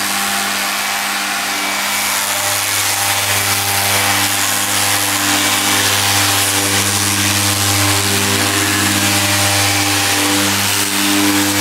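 Festool random orbital sander running steadily with a soft foam interface pad, wet-sanding the clear coat of black car paint with 3000-grit paper. It makes a constant motor hum with a hiss over it.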